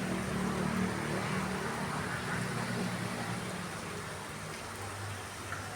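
Small waterfall running, a steady rush of splashing water.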